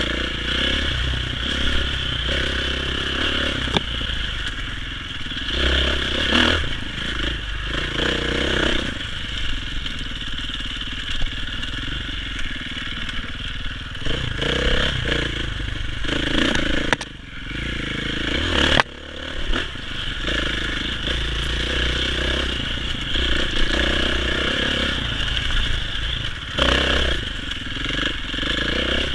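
Dirt bike engine running under varying throttle as it is ridden along a bumpy dirt trail, with clattering from the bike over the ground. The sound drops briefly twice a little past the middle.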